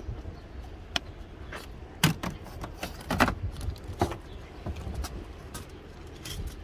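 Scattered clicks and knocks from a coffee cart's metal cabinet and tins of chocolate powder being handled: about half a dozen sharp knocks, the loudest about two and three seconds in, over a steady low rumble.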